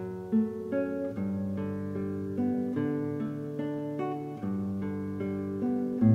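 Background music: plucked acoustic guitar playing a melody over chords, notes changing every fraction of a second.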